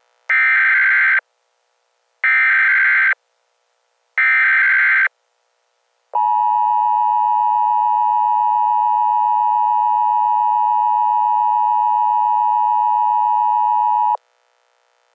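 Emergency Alert System tones: three short, shrill bursts of SAME header data, each about a second long and two seconds apart, then the steady two-tone EAS attention signal held for about eight seconds and cut off suddenly.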